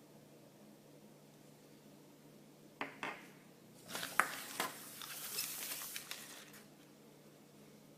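Toy packaging being handled: two sharp clicks about three seconds in, then a loud click, a few more clicks and two or three seconds of crinkling and clattering.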